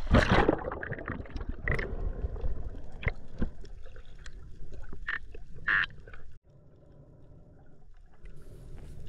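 A diver splashes into the sea, followed by underwater bubbling with scattered clicks and crackles. About six seconds in the sound drops off suddenly to a quieter underwater hiss.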